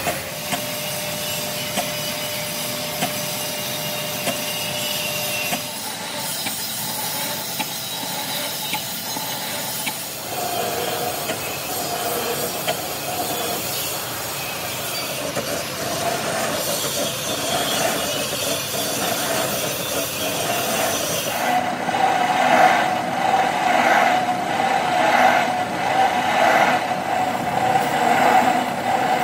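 Vertical lathe turning a rough cast iron pulley casting while the tool faces its top surface: a steady machine running sound with a scraping cut. The sound grows louder for the last several seconds and pulses about once a second.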